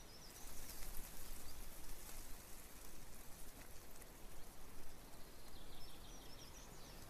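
Faint outdoor woodland ambience with light irregular crackling, and a bird chirping briefly at the start and again near the end.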